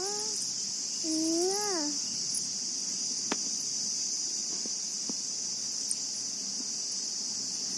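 Steady high-pitched chorus of crickets, with a short rising-and-falling voice sound twice in the first two seconds and a few faint clicks.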